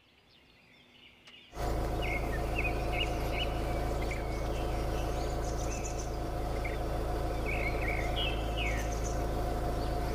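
Wild birds calling in short, chirpy notes that come in clusters over a steady background noise with a faint hum, starting about a second and a half in.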